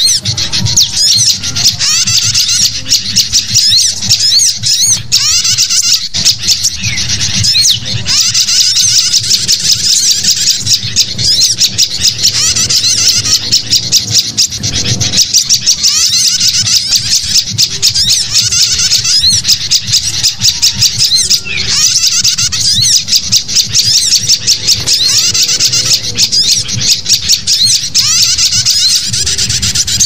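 Dense, unbroken chattering and chirping of many small songbirds, a mixed bird-lure call track of noisy sooty-headed bulbuls combined with sunbird and prinia calls. A low steady hum runs underneath.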